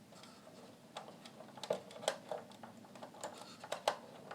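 Faint, irregular small clicks and taps from hands working on the cassette deck mechanism while a drive belt is fitted to its pulley.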